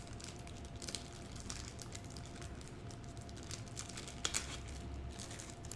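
Faint crinkling and scattered light clicks of small things being handled, over a faint steady hum.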